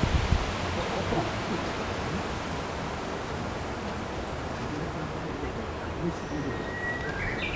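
Steady, even outdoor background hiss, with a brief thin whistled note near the end.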